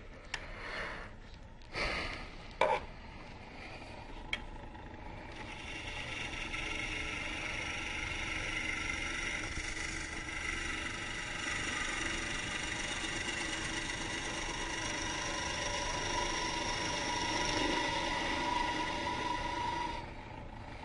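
A few sharp knocks and clicks at first, then from about five seconds in a gouge cutting the end of a green-wood goblet blank spinning on a Jet Mini lathe: a steady cutting noise over the running lathe, which stops about a second before the end.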